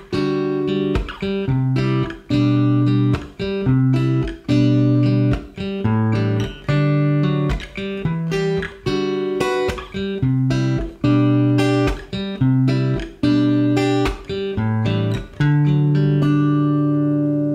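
Background music on plucked guitar, picking a melody of single notes at about two a second, then settling on a held chord that rings out near the end.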